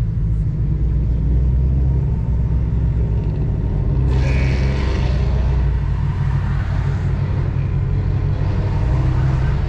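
Car engine's low, steady rumble heard from inside the cabin while creeping forward in first gear at walking pace, with a brief rush of higher-pitched noise about four seconds in.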